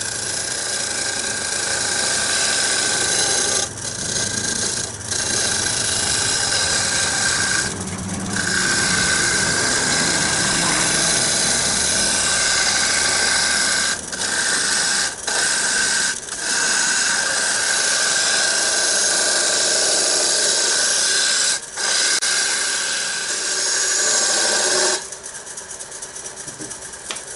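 Flat turning tool cutting the edge of a spinning wooden box on a wood lathe: a loud, steady scraping hiss with a whine in it, broken off briefly several times as the tool comes off the wood. Near the end the cutting stops and only a quieter fading hum is left.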